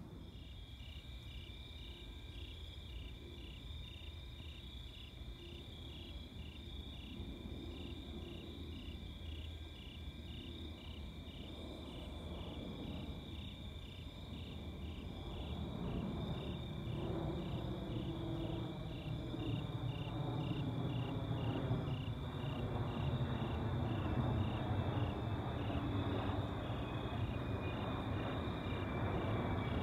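Night insects chirping in a steady rhythm, about two chirps a second, while a low rumble of aircraft engines grows louder from about halfway in. A faint whine slides down in pitch near the end.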